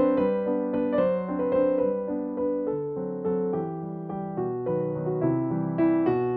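Background piano music: a slow melody of notes and chords, a little softer in the middle.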